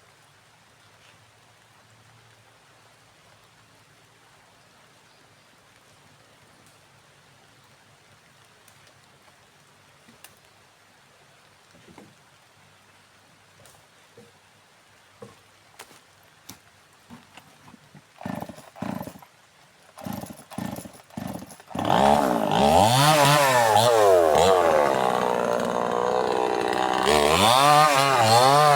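Two-stroke chainsaw being started after a long quiet stretch with a few faint knocks. It fires in several short coughs, then catches and runs, its revs rising and falling repeatedly.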